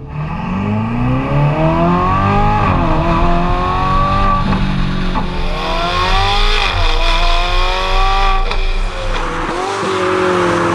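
Ferrari 488 GTB's twin-turbo V8 breathing through a Fi Exhaust valved catback with catless downpipes, accelerating hard through the gears. The pitch climbs and drops back at each of several upshifts, then holds steadier near the end.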